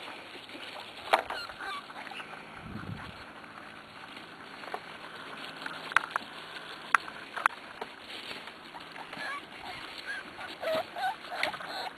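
Six-week-old corgi puppies crying: short, high whines and yelps scattered through, coming thicker toward the end. A few sharp taps sound in between.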